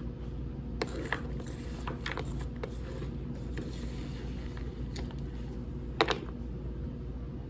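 Compressed cornstarch being crunched, with a scatter of small crackles from about a second in to three seconds and a sharper double crunch about six seconds in, over a steady low hum.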